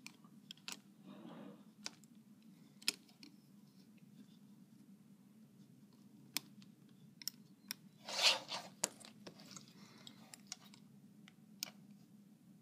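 Scattered light clicks and taps of a metal hook and rubber bands against the plastic pegs of a Rainbow Loom, with one brief louder rustle about eight seconds in, over a low steady hum.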